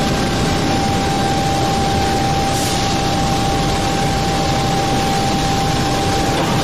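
Copper induction melting furnace running: a loud, steady wash of industrial noise with a thin, steady high whine over it, and a brief hiss swelling up about two and a half seconds in.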